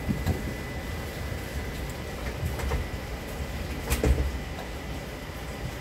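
Steady low rumble with a few soft knocks and clicks, the loudest about four seconds in.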